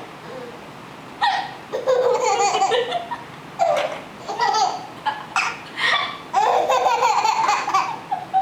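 A baby laughing in about eight short bursts, with the longest laugh near the end.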